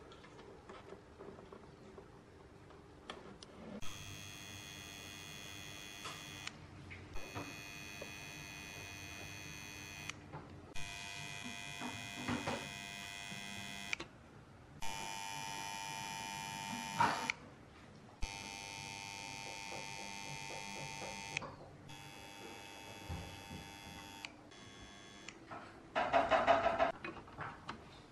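Steady electrical buzz made of many overtones, starting and stopping abruptly several times in stretches of a few seconds, with a brief louder rattle near the end.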